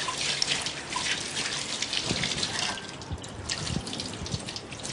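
Kitchen tap running water into a sink, with scattered light knocks and clinks.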